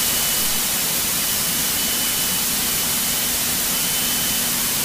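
Steady rushing cabin noise of a single-engine light airplane in flight: engine, propeller and airflow blended into an even hiss, with a faint steady high whine.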